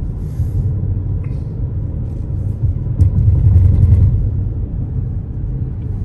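Road rumble inside a moving car: a steady low drone that swells louder for about a second just past the middle, starting with a sharp click.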